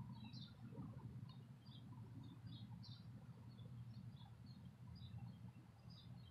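Faint birds chirping: short, high calls scattered a couple of times a second over a low, steady outdoor background rumble.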